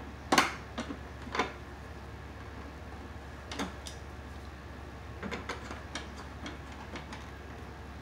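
Scattered clicks and small knocks of pliers on a wire nut and copper ground wires as the wire nut is tightened in a metal junction box; the loudest click comes just under half a second in.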